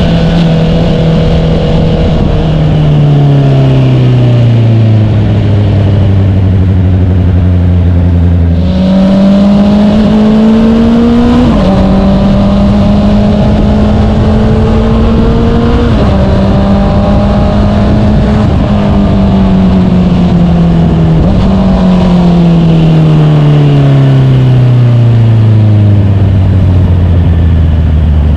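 Honda CBR650R's inline-four through an Akrapovic full-system exhaust with the inner silencer removed, under way: the exhaust note falls steadily as the bike slows, then jumps up about nine seconds in and climbs under throttle. It drops sharply at two gear changes, holds steady, then falls away again as the bike slows near the end.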